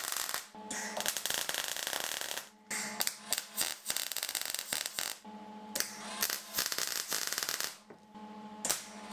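Electric welding arc crackling and sizzling in short runs as steel angle-iron slides are tack-welded onto a steel tube frame, over a steady electrical hum. The arc breaks off briefly about two and a half seconds in and again near the end.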